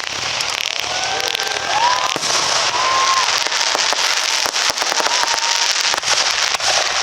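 Aerial fireworks going off in a loud, continuous barrage: a dense crackling haze packed with many sharp pops, with a few short whistling glides over it.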